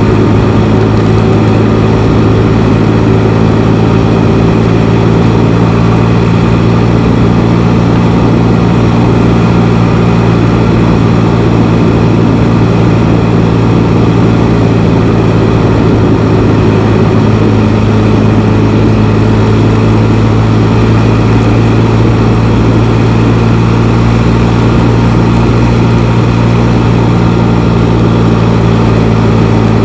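Can-Am Spyder three-wheeled motorcycle's engine running at a steady speed while riding, a constant low hum with a rush of wind and road noise over it.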